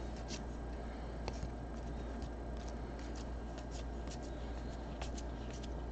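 A stack of 2018 Panini Contenders Draft football trading cards thumbed through by hand, with soft, irregular flicks of card edges sliding past one another over a steady low hum.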